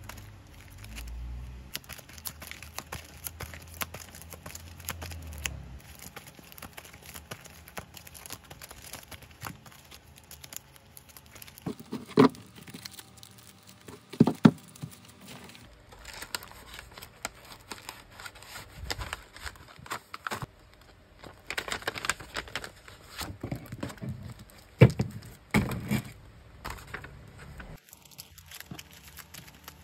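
Clear plastic sleeves on packaged sticker sheets crinkling and rustling as a stack is shuffled and sorted by hand, with a few louder sharp taps of the packs knocking together.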